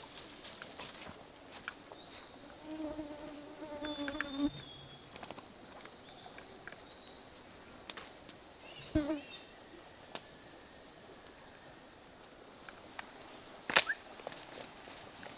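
Steady high-pitched drone of insects in tropical forest. A brief pitched call lasts about two seconds a few seconds in, and sharp knocks come around nine seconds and near the end; the last is the loudest.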